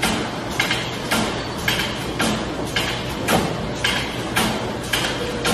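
Doughnut-cutting machinery clacking in a steady rhythm, about two clacks a second.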